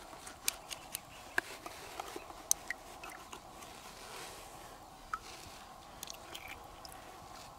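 Small knife working through a freshwater pearl mussel's wet flesh as pearls are pried out: scattered wet, crunchy clicks and squelches at irregular intervals, a few sharper than the rest.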